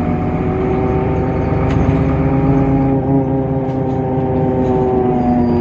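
Temsa Avenue LF city bus's DAF PR 228 diesel engine running steadily under way, a pitched drone with only slight changes in speed.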